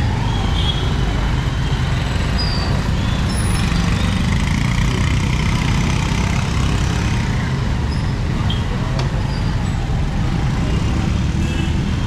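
Street traffic: vehicle engines running with a steady, dense low rumble, and a few short faint high tones here and there.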